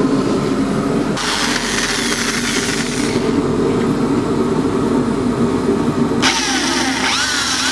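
Electric drill running steadily with a small bit boring a pilot hole through tape. About a second in a hiss of cutting joins the motor's whine, and near the end high squeaks rise and fall.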